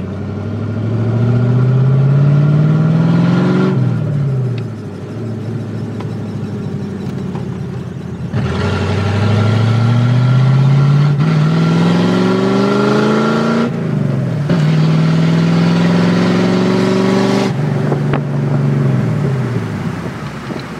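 A 1988 Ford Mustang GT's 5.0 (302) V8, with no exhaust past the catalytic converters, heard from inside the cabin as it accelerates hard through the gears of its five-speed manual. The revs climb and drop at a shift about four seconds in, then run lower for a few seconds. About eight seconds in they climb again in a long pull, drop at another shift, hold in the next gear, and fall away as the throttle is lifted near the end.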